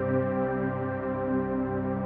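Ambient background music of slow, held chords.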